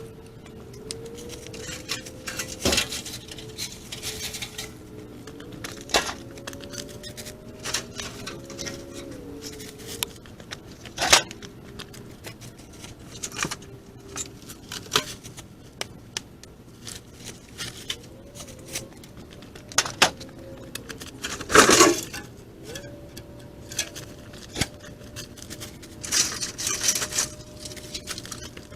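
Scrap wood being moved and tossed aside by hand: irregular knocks and clatters with short scraping rustles between them, the loudest knocks a little before the middle and twice more about three quarters of the way through. A faint tone slides up and down in the background.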